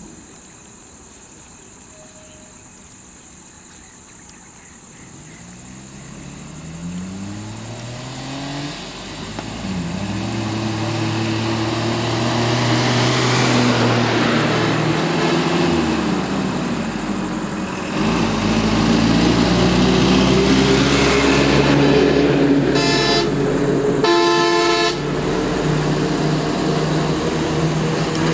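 Truck and bus engines close by: a truck's engine rises in pitch as it draws near, then runs steadily, and a louder bus engine joins it. A vehicle horn gives two short blasts about 23 and 24 seconds in.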